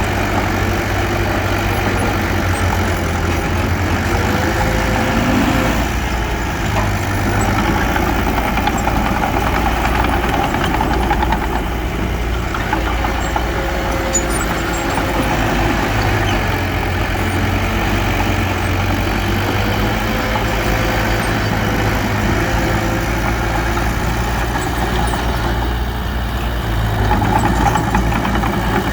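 Heavy earthmoving machine's diesel engine running steadily at a loud, even level.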